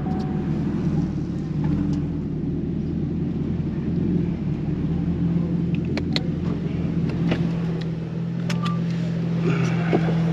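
Chevrolet Camaro ZL1 1LE's supercharged 6.2-litre V8 running steadily at low speed, with a few sharp clicks about six to eight seconds in.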